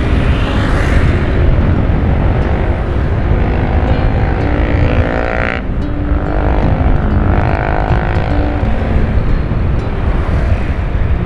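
Vehicle engine and road rumble while driving, with the revs climbing and then dropping at a gear change about halfway through, under background music.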